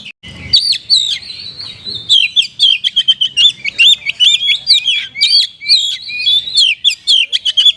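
Oriental magpie-robin (kacer) singing a fast, unbroken run of short, sharp chirping notes, several a second, with a brief break just after the start; the song is the 'kapas tembak' style that the bird has been taught to mimic.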